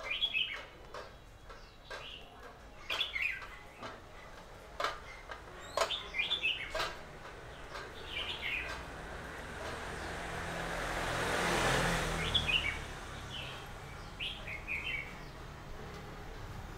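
Small birds chirping in short, high calls repeated on and off, with a few sharp clicks. About two thirds of the way through, the noise of a passing vehicle swells and fades.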